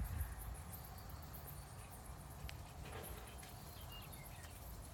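Quiet dusk outdoor ambience: faint, high-pitched chirping and ticking over a low background rumble.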